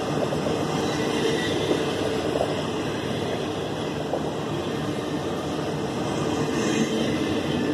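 Double-stack intermodal container train rolling past: steady rumble of the well cars' wheels on the rails.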